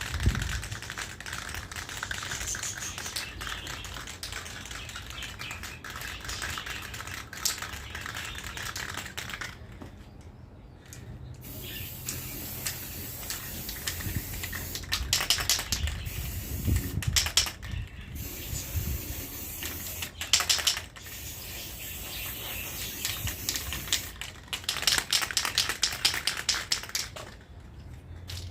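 Paint being sprayed: long hissing bursts that stop and restart a few times, mixed with quick clicking and rattling.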